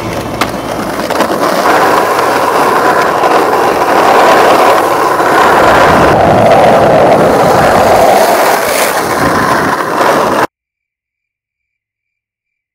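Two sharp clacks of a skateboard on a rail, then the steady, loud rolling of skateboard wheels over rough asphalt, cut off abruptly to silence near the end.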